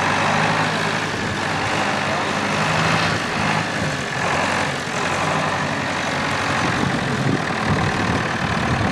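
Case 1494 tractor's diesel engine running steadily as the tractor drives slowly across grass.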